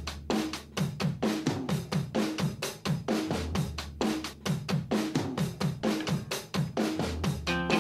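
Background music: a fast drum-kit beat with kick, snare, hi-hat and cymbals, and low thumps that drop in pitch on the beats. A pitched instrument comes in near the end.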